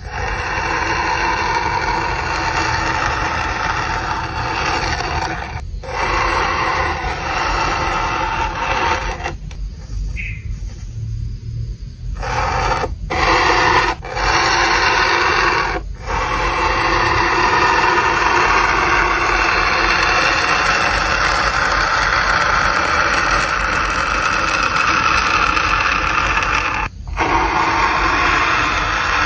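A fine metal-tipped tool scratching and cutting through a white foam sheet: a continuous, dry, scratchy rasp, broken by a few short pauses and a longer lull about ten seconds in where the tool lifts off.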